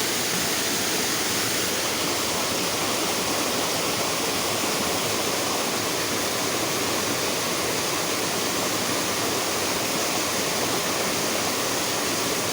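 Flowing stream water rushing steadily, an even loud hiss with no change in level.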